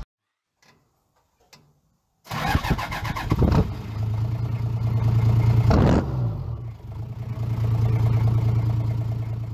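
Silence, then a vehicle engine starts about two seconds in, revs, and settles into a steady run, with a brief change in pitch around the middle.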